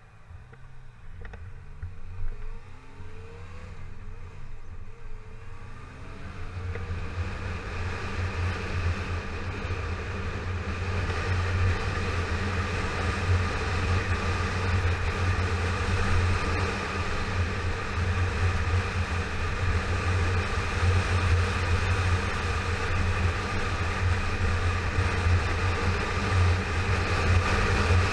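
Yamaha FZ6R's 600 cc inline-four engine accelerating away, rising in pitch several times over the first six seconds as it pulls through the gears, then running at a steady cruise under a growing rush of wind.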